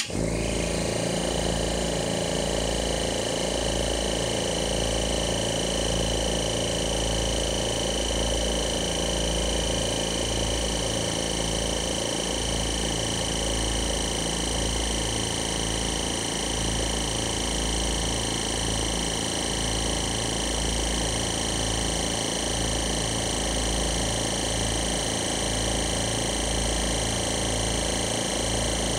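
Oil-less dental air compressor's motors start abruptly and run steadily, a pulsing low hum with a high whine over it, with the intake filter boxes not yet fitted.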